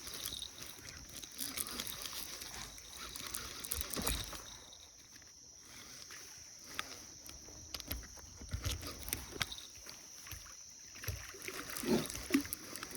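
Water splashing and sloshing as a hooked catfish is pulled in at the bank, with scattered small clicks and knocks of handling. Underneath runs a steady high insect drone.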